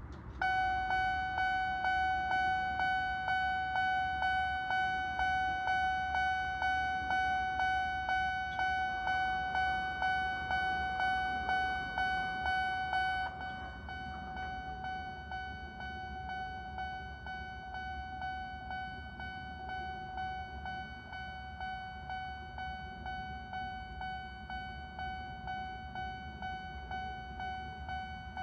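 Japanese railway level-crossing warning bell ringing its electronic clang, about two strokes a second. About 13 seconds in it drops to a noticeably lower volume and keeps ringing.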